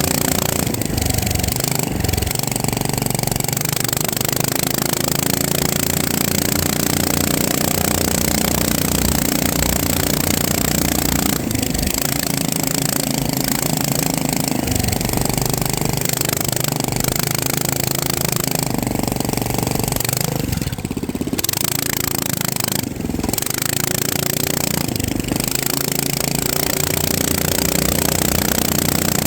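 FPV drone's electric motors and propellers buzzing steadily, the pitch rising and falling again and again with throttle changes, with a few short dips in level.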